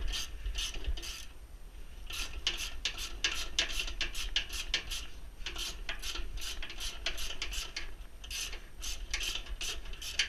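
Socket ratchet clicking in quick runs as a bolt is backed out of a pellet stove's motor mount, with a couple of short pauses.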